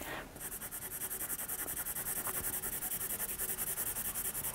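Blue coloured pencil shading on paper: quick, even back-and-forth scratchy strokes, about five a second, as an area is filled in with colour.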